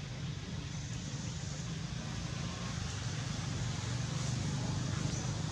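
Steady low rumble with an even hiss over it: continuous outdoor background noise, with a few faint, brief high chirps.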